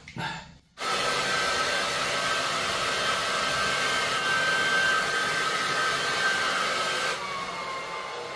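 Handheld hair dryer blowing steadily, a rushing air noise with a faint motor whine; it starts about a second in and drops a little in level near the end.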